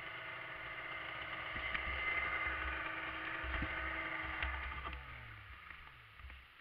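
Arctic Cat ZRT600 three-cylinder two-stroke snowmobile engine idling steadily, then shut off a little under five seconds in, its pitch falling as it winds down to a stop.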